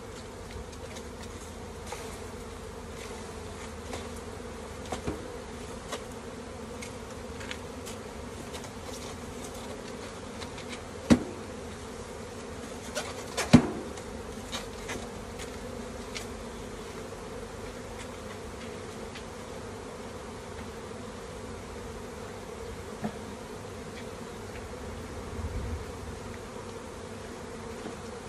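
A honeybee colony buzzing steadily in an open hive. Two sharp knocks come near the middle.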